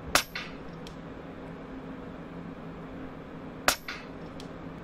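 Two sharp shot reports from a KalibrGun Cricket .25 PCP air rifle, one just after the start and one about three and a half seconds later. Each is followed by a short, weaker echo.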